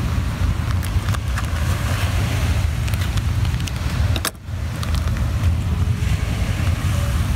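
Steady low rumble of wind buffeting the microphone on a beach, dipping briefly about four seconds in. A few faint clicks come from kitchen scissors snipping open a plastic bacon packet.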